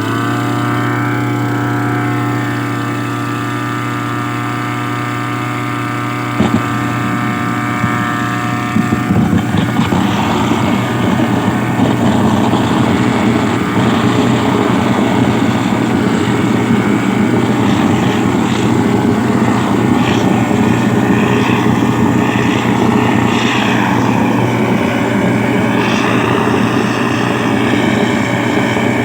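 A small engine-driven machine running steadily at a constant pitch. From about eight seconds in, a rough, noisy rushing sound joins it and becomes the louder part.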